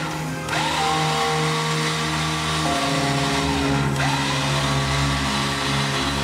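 Bumper-mounted electric winch running, its motor and gears pulling in the cable, with music playing over it.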